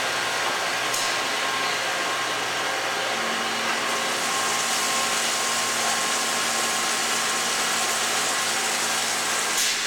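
Citizen Type E32 Swiss-type CNC lathe running, a steady whirring hum with a faint high tone, as its axes move through a cycle. A lower hum joins about three seconds in.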